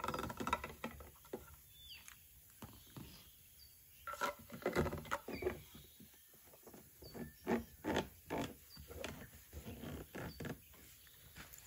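Irregular plastic clicks, creaks and knocks of a pour spout being fitted and screwed onto a plastic jerry can.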